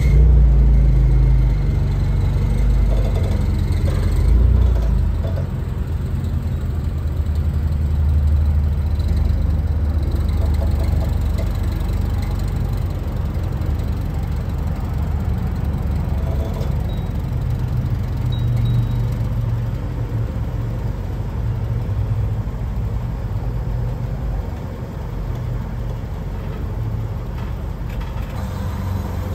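Propane forklift's engine running with a steady low hum as it lifts a stone slab.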